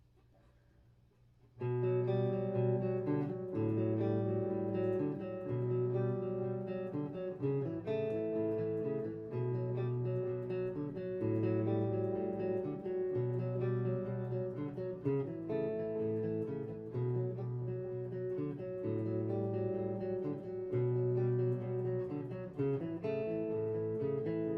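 Guitar played through an Orange Dark Terror tube amp head, fairly clean: a repeating progression of ringing chords that starts about a second and a half in.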